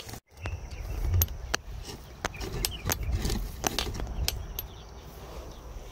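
Wind buffeting the microphone outdoors, a steady low rumble, with scattered sharp clicks and light rustling.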